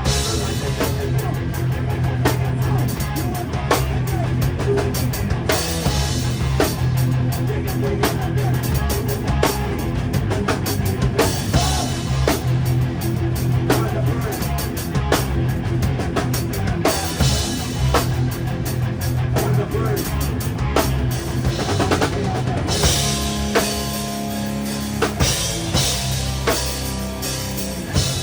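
Rock band playing live, heard from beside the drum kit: loud drums with kick and cymbals over bass and guitar. The part changes a few seconds before the end.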